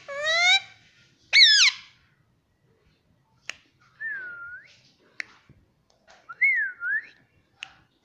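Indian ringneck parakeet calling and whistling. A rising call ends just after the start, a sharp falling squawk comes about a second and a half in, and later there are two single-tone whistles that dip and rise in pitch, with a few faint clicks between them.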